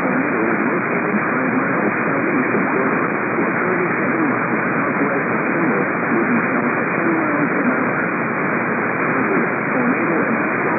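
Steady hiss of static on a weak, narrow-band radio signal, with faint traces of a voice under the noise.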